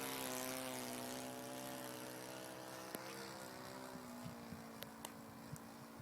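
Engine of a Kyosho Pitts S2 radio-controlled model airplane running at a steady high-pitched buzz, slowly fading as the plane moves away. A few faint clicks are heard in the second half.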